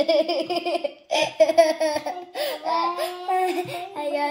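A young girl laughing hard in quick repeated bursts, with longer drawn-out laughter later on.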